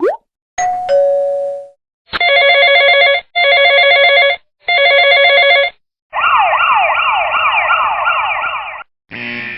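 A string of separate sound effects: a quick rising glide, a two-note chime stepping from high to low, three ringing electronic tones of about a second each, then a fast-repeating siren-like sweep for nearly three seconds.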